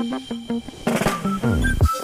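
Background music of short, bouncy pitched notes on a steady beat. Near the end comes a falling pitch slide and a few rising high notes.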